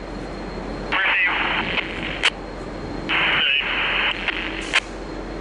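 Two-way radio on the train crew channel hissing with static between transmissions, with a short burst of static about a second in and a longer one around three seconds in, and sharp clicks as it keys on and off.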